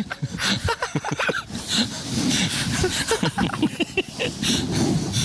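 Indistinct voices of several people talking over one another and laughing, with no clear words.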